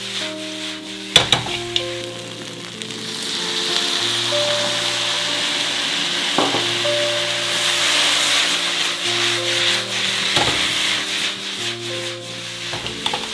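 Noodles and vegetables sizzling in a hot wok, the sizzle swelling from about three seconds in as vegetable stock hits the pan. A few sharp knocks come as the wok is tossed on the stove.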